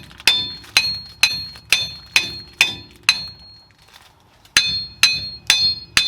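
Hammer tapping on metal, sharp ringing strikes about two a second with a pause of about a second and a half midway, while a part is driven into the rear axle assembly.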